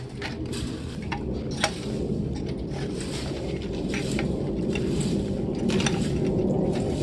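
Repeated clinking and clattering of small hard objects, as tools and parts are handled, over a steady low rumble that grows slightly louder.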